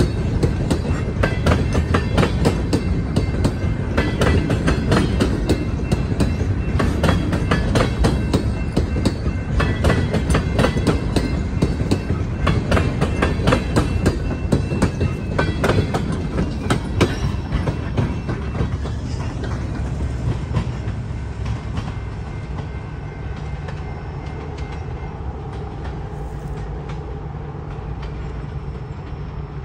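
Freight train's covered gondola cars rolling past close by: wheels clacking over rail joints in a fast, irregular clatter over a steady low rumble. The clatter fades away in the last third as the end of the train rolls off into the distance.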